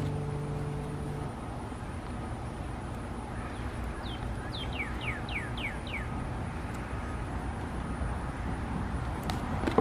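A bird sings a short series of about six clear downslurred whistles in the middle, over a steady low outdoor rumble like distant road traffic. A guitar note fades out about a second in.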